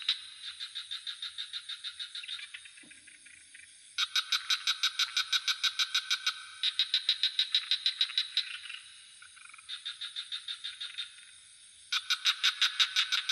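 Frogs calling in rapid pulsed trills of about eight pulses a second, in bouts of two to three seconds that overlap and answer one another. Crickets keep up a steady high trill beneath them.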